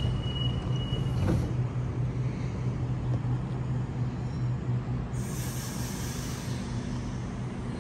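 Waratah Series 2 (B-set) electric double-deck train standing at the platform with a steady low electrical hum, a brief knock about a second in, and a burst of hiss from about five seconds in.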